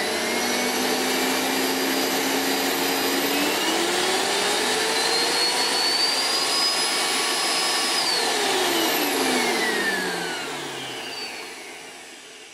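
Miele S7 upright vacuum cleaner's motor running: it starts up with a steady hum, rises in pitch over a couple of seconds as the power dial is turned up, holds there, then falls in pitch and fades as the motor runs down near the end. The motor is running properly after refurbishment, its over-tightened fan nuts now corrected.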